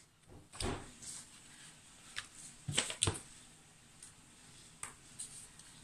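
Light handling noises on a craft table: a few short taps and rustles as a plastic stencil is laid down and a tube of adhesive is picked up and opened. The loudest is a quick double tap about three seconds in.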